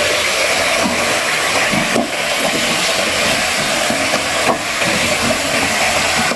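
Food frying in hot oil in a pan: a loud, steady sizzling hiss, with two short knocks about two seconds and four and a half seconds in.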